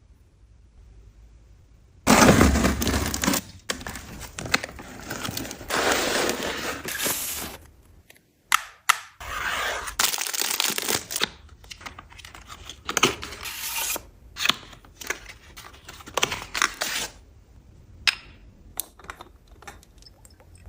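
Packaging being torn open and crinkled: a run of irregular rustling, tearing bursts with sharp clicks, starting about two seconds in and loudest at the start, then thinning out to a few scattered clicks near the end.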